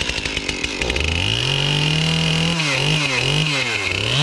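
Two-stroke gas chainsaw running. It is revved up about a second in and held, then the throttle is blipped up and down several times.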